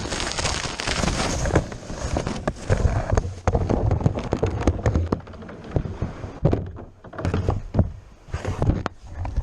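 Irregular knocks and thunks from a Pelican Challenger 100 plastic kayak being handled, over a low wind rumble on the microphone.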